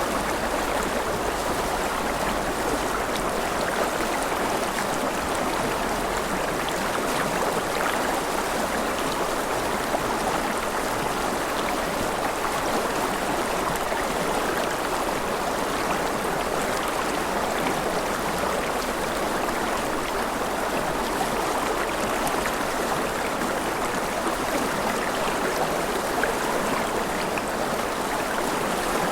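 Gentle rain falling steadily, an even, unbroken hiss of water with no change in strength.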